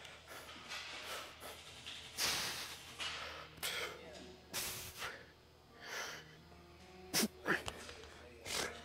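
Forceful, noisy breaths from a man straining through a set of dumbbell Bulgarian split squats: a string of sharp exhales and gasps, roughly one every second or so.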